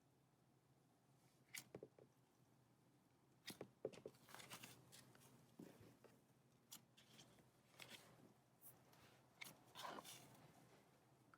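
Slime being squeezed and stretched by hand: faint, scattered sticky clicks and crackles, starting about a second and a half in.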